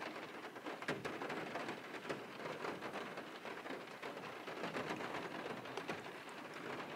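Light rain pattering on the car roof, heard from inside the cabin: a steady patter of small irregular ticks over a soft hiss.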